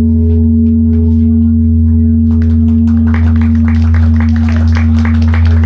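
A 6,000-pound Korean bronze bell ringing on after being struck: a long, loud, low hum with a few steady higher tones above it. From about two seconds in, clapping joins it.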